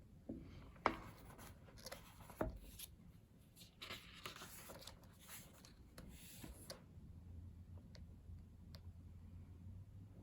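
Pages of a thick photobook being handled and turned by hand: a couple of sharp taps in the first few seconds, then a few seconds of paper sliding and rustling.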